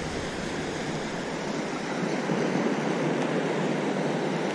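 Steady wash of shallow seawater lapping and rippling, a continuous even rush with no distinct strokes.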